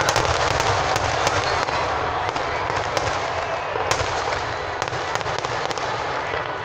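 Aerial fireworks display: a dense, continuous crackle of bursting shells with many sharp bangs scattered throughout.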